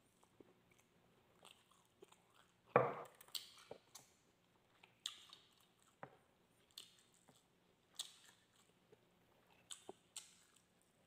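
Close-up mouth sounds of a man chewing and biting grilled barbecue meat and rice: faint, wet smacks and clicks about once a second, with one louder bite about three seconds in.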